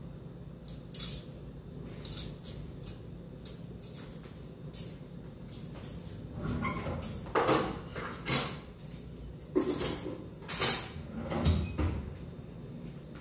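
Kitchen clatter of cookware and utensils being handled at a gas stove: a few light clicks at first, then a run of louder knocks and scrapes in the second half.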